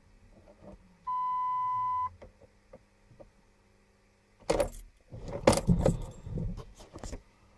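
A steady one-second electronic beep, then a few seconds of keys jangling and clinking irregularly. No engine is heard.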